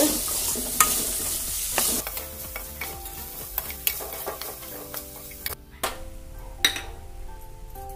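A steel ladle stirring and scraping onions and peanuts frying in a steel kadai, with sharp clinks of ladle on pan over the sizzle of the oil. The sizzle fades about two seconds in, leaving scattered clinks over soft background music with held notes.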